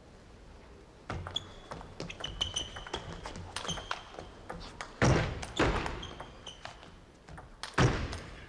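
Table tennis rally: the celluloid ball clicking off rubber bats and the table, a quick run of sharp pings starting about a second in. Two louder bursts of sound from the hall break in, about five seconds in and near the end.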